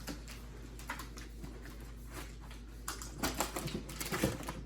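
Scattered clicks and rustles of cardboard and plastic packaging being handled while a computer motherboard is unboxed, busiest about three seconds in.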